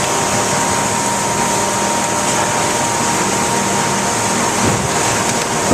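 Steady factory machinery noise: a continuous hiss with a low hum and a faint high steady tone, unchanging throughout.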